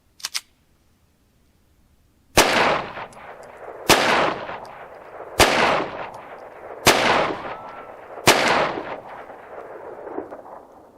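Five shots from a Walther P22 Q .22 LR pistol, evenly spaced about a second and a half apart, each followed by a trailing echo. Two small clicks come just before the first shot.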